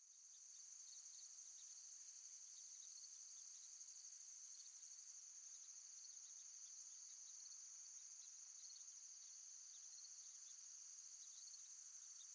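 Faint, steady high-pitched insect chorus of crickets, a continuous trilling that swells up in the first moment and then holds unchanged.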